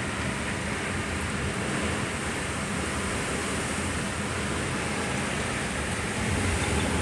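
Strong hurricane winds blowing hard and steadily, an even rushing noise that swells a little near the end.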